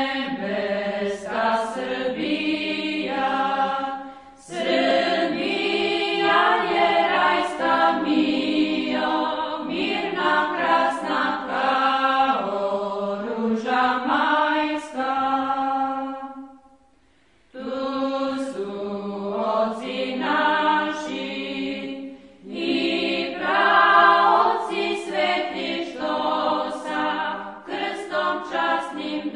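Background music of choral chanting, sung in long, slow phrases, with a short pause a little past halfway.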